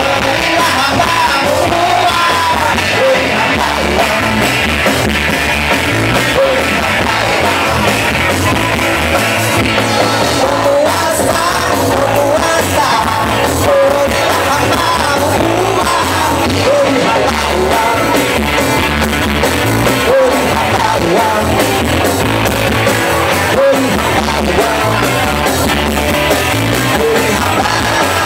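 Live rock band playing amplified through a PA: electric guitars, drums and a sung lead vocal, heard from within the audience.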